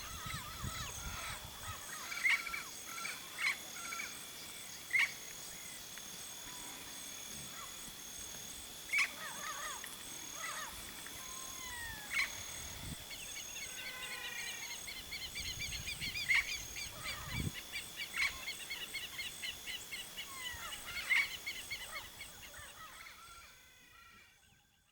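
Dusk chorus of birds, among them turquoise-fronted amazon parrots, giving short, sharp calls that drop in pitch, over a steady high insect buzz. A fast trill of repeated notes joins about halfway, and the whole chorus fades out near the end.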